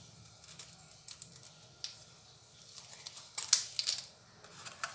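A few short, sharp clicks and rustles of kitchen utensils and containers being handled, the loudest cluster about three and a half seconds in.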